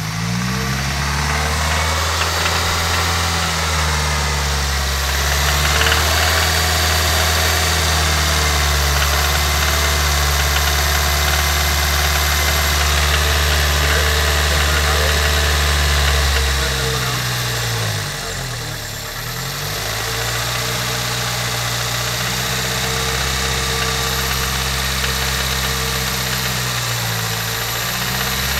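Toyota Corolla four-cylinder engine idling with an odd ticking, which the owner believes is a lifter needing replacement or adjustment. The engine note is steady apart from brief changes in speed around two-thirds through and near the end.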